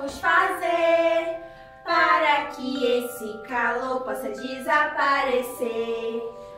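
High voices singing a children's song over a musical backing, with held notes under the melody.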